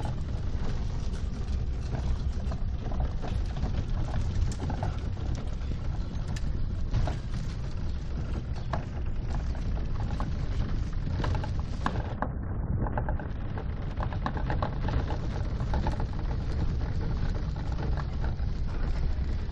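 Cycle rickshaw rolling over cobblestones and paving: a steady low rumble with scattered rattles and clicks.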